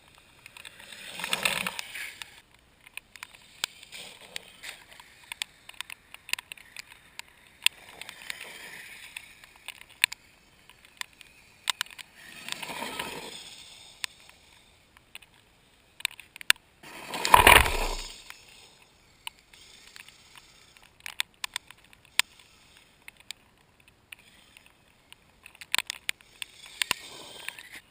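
Kyosho Blizzard radio-controlled snowcat driven on an icy crust in short runs of a second or two, its tracks scraping and slipping, with many sharp clicks in between; the loudest run comes about two-thirds through.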